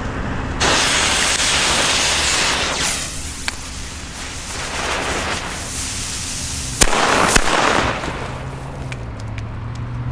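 Two Super Color Masclet firecrackers with preburners going off: the burning preburner gives a loud hiss, then two sharp bangs about half a second apart a little after halfway.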